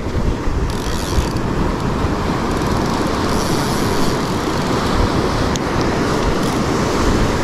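Ocean surf washing on the shore, with wind buffeting the microphone: a steady, dense rumble.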